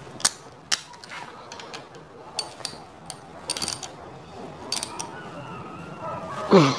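Scattered light metallic clicks and clinks of timing sprockets, belt and tools handled on a Mitsubishi 4D56 diesel engine's front end as its timing belt is fitted. Near the end comes one short, loud sound that falls in pitch.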